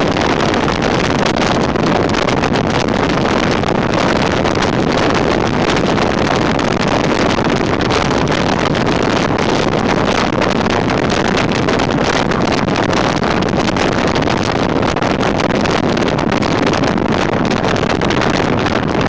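Jeep CJ7 driving steadily along a paved road, heard from outside the body by the rear wheel: a loud, even rush of wind buffeting the microphone mixed with tyre and engine noise.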